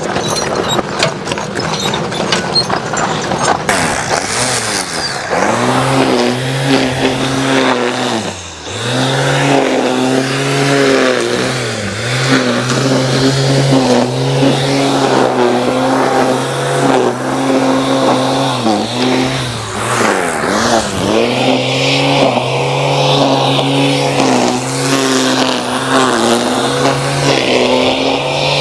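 String trimmer motor running at speed, its pitch dropping as the throttle is eased and picking up again several times. A clicking clatter comes before it in the first few seconds.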